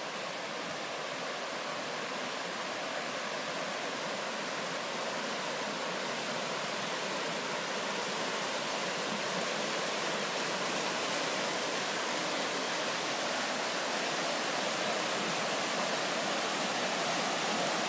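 The Rifle River, running high with spring meltwater, rushing over rapids: a steady white-water rush that grows slowly louder.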